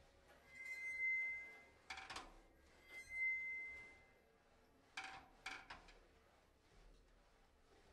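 Sparse, quiet free-improvised drum-kit percussion: a high ringing metallic tone swells up and fades away twice in the first half, with a few light clicking strikes about two seconds in and again around five seconds in.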